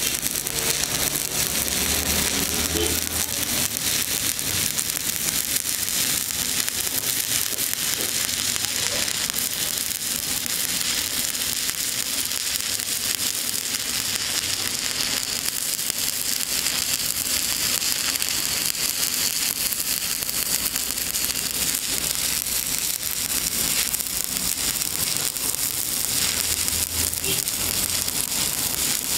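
Stick (shielded metal arc) welding: the arc of a coated electrode crackling steadily as it burns along the weld joint.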